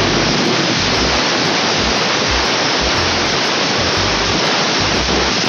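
Pressure washer jet spraying steadily against the pigeon cage, blasting off hardened droppings.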